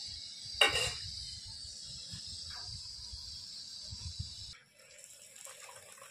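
A steady high-pitched chirring in the background, broken by one sharp clatter about half a second in. After a cut near the end, a puri fries in hot oil in a kadhai with a faint sizzle.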